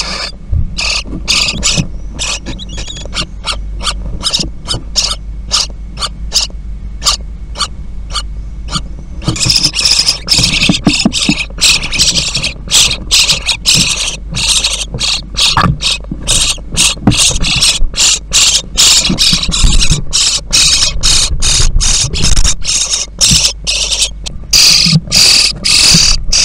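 Common starling nestlings begging: many short, harsh, rasping calls in quick succession, sparser at first and nearly continuous from about nine seconds in. A steady low hum runs underneath.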